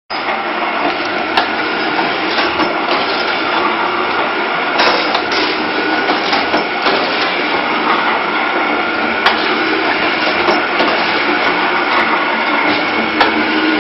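Shisha charcoal tablet press machine running: a steady, loud mechanical clatter from its punches and drive, with sharp knocks every few seconds.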